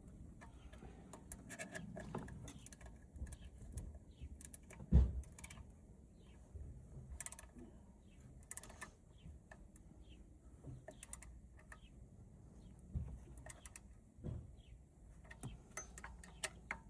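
Scattered metallic clicks and clinks of hand tools working on an engine's bolts during a water pump replacement, with a sharp knock about five seconds in and a few smaller knocks later.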